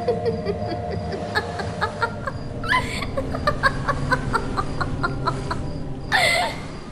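A woman's nasty, cackling laugh: a quick run of short staccato bursts, with louder drawn-out cries near the middle and near the end, over a low steady drone.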